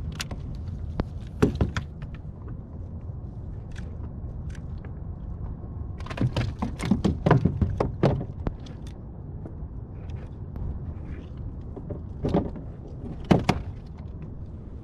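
Scattered knocks and clatter of fishing gear being handled on a kayak: a pair about a second and a half in, a quick run of them from about six to nine seconds, and two more near the end, over a steady low rumble.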